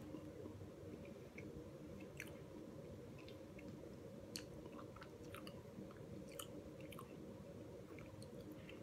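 Faint chewing of a soft chocolate snack cake with peanut butter filling: scattered small wet mouth clicks over a steady low hum.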